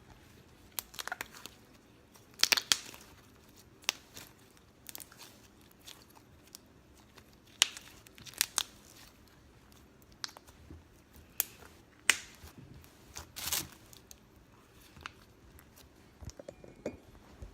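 Sticky glue slime with pom-poms mixed in, being kneaded and squeezed by hand: irregular sharp crackles and pops.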